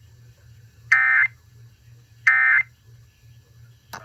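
Emergency Alert System SAME end-of-message data bursts: two short, shrill two-tone digital screeches about a second and a half apart, the close of the three-burst code that marks the end of the alert. A click near the end.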